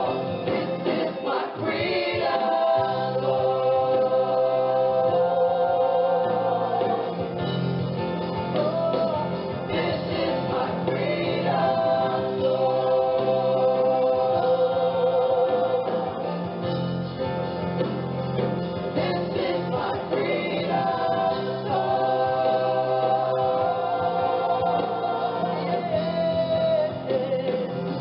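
Background gospel music: a choir singing long held notes with slight vibrato over a steady bass line.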